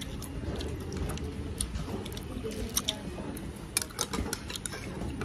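Close-up eating: chewing, with a few light clicks of a metal spoon and chopsticks against a ceramic bowl, mostly in the second half, over a steady low background hum.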